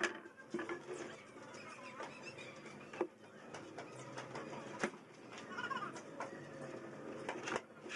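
Scattered knocks and clicks as a wooden drawer box and its metal ball-bearing slides are handled and fitted to a cabinet, a few sharp ones spread among quieter handling noise.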